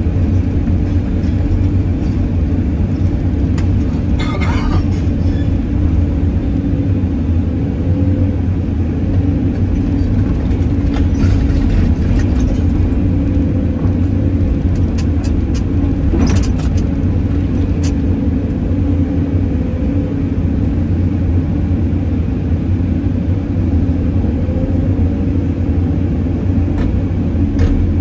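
Cat 320D hydraulic excavator's diesel engine running steadily under load, heard from inside the cab, with a few short knocks and clatters as the bucket works through rubble.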